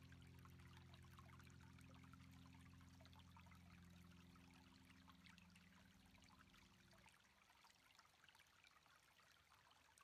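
Near silence: a very faint hiss of water with fine crackle, as of surf, under a low steady drone that stops about seven seconds in.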